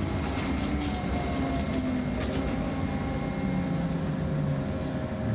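Gothenburg M31 tram running on the rails, heard from inside the car: a steady rumble with a faint motor whine that falls slowly in pitch as the tram slows into a stop.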